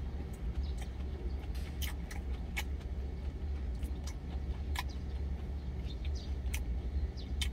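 Steady low hum of an idling truck engine heard from inside the cab, with scattered short, sharp clicks of chewing and lip smacks over it.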